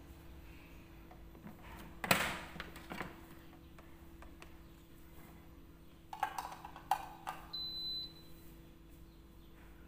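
Yong Ma rice cooker: its lid clunks shut about two seconds in, a few clicks and knocks follow, and a short high beep sounds near the end as the cooker is switched on.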